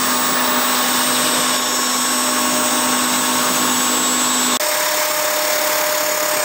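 DIY CNC router's spindle motor running at speed while its bit cuts a groove in a red plastic sheet: a steady whine with a hiss of cutting. A momentary dropout about four and a half seconds in, after which it carries on at a slightly different pitch.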